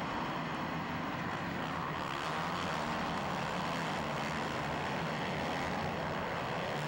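A pack of motocross bikes racing together, their engines blending into one steady, dense din with slight wavering in pitch, heard from a helmet camera on one of the bikes in the middle of the pack.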